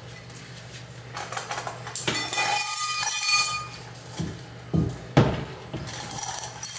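Metal clinking and ringing as a 35-pound weight plate and the belt it hangs from are taken off after weighted pull-ups, starting about a second in, followed by a few low thuds as the plate is set down on the floor.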